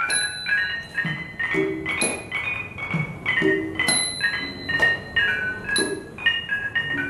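Khong wong lek, the Thai small gong-circle, playing a quick melody of struck bronze gong notes. A hand drum and small cymbals keep the beat: the drum strikes about once a second, and the cymbals give a bright, ringing clink about every two seconds.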